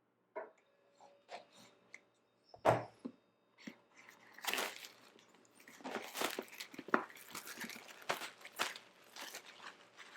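Cellophane shrink-wrap being slit and peeled off a boxed iPad Pro, crinkling and tearing, with a sharp knock a little under three seconds in.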